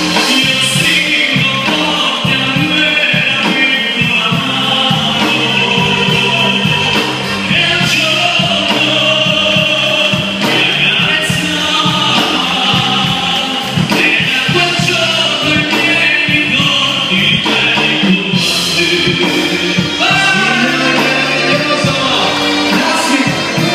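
Amplified live music: a male singer singing an Italian popular song into a microphone over an instrumental accompaniment.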